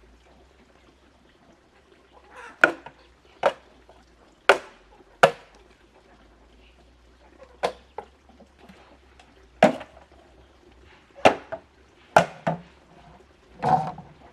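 About ten sharp, irregular blows from hand-tool work during a chicken coop repair, each a short crack with the strikes spaced about half a second to two seconds apart.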